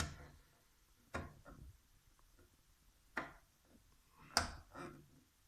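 Buttons on a Fagor washing machine's control panel clicking as they are pressed: about five short, sharp clicks at uneven intervals, the loudest about four and a half seconds in, as the start/stop control is tried to switch the machine off.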